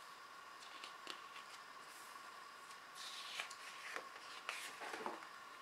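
Faint paper rustle of a picture book's page being handled and turned, with a few light ticks about a second in and a longer soft rustle from about three seconds in, over a faint steady hum.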